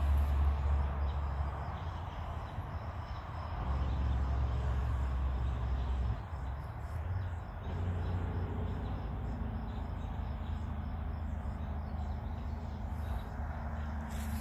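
Outdoor ambience: a steady low rumble that drops out briefly twice, with faint bird chirps.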